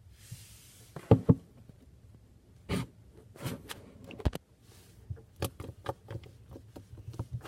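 Slime being squished and stretched by hand, giving irregular wet clicks and pops: a loud pair about a second in, then a scatter of smaller pops.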